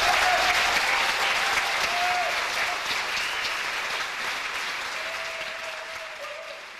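Theatre audience applauding at the end of a performance, the clapping dense and steady, then fading out near the end.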